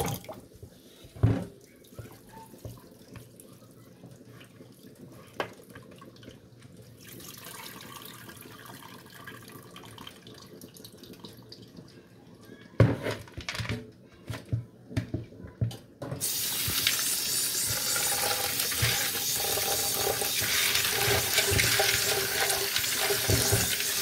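Kitchen tap water stops right at the start, followed by a quieter stretch with a few knocks of a plastic colander bowl in a steel sink. A little past halfway, split fava beans and the bowl clatter as the bowl is handled and tipped. From about two-thirds of the way in, the tap runs steadily into the bowl of beans being washed.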